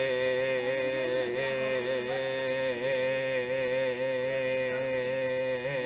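Aircraft engine droning steadily, a continuous hum with several tones that waver slightly in pitch now and then.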